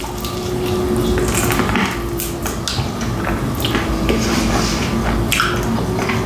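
Close-miked eating of crispy fried chicken wings: irregular crunching, crackling and clicking as the coating is bitten and handled, over a steady low hum.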